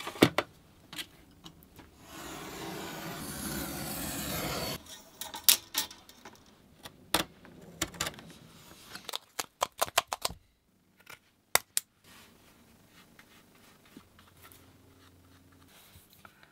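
Hand work on concertina bellows card: a steady rasping rub for about three seconds, then a run of sharp clicks and taps as a utility-knife blade trims a stack of card pieces. In the last few seconds only a faint low hum is left.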